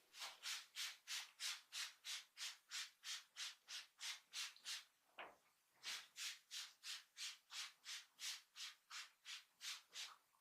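Massage strokes: hands rubbing rhythmically over skin or hair, about three strokes a second, with a short break a little past halfway.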